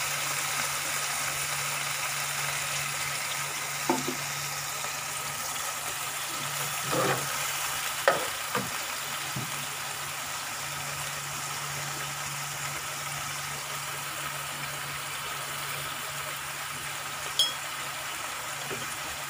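Dark sauce with sliced spring onions sizzling steadily in a nonstick frying pan, with a few sharp knocks, likely the spatula against the pan, and a faint steady low hum underneath.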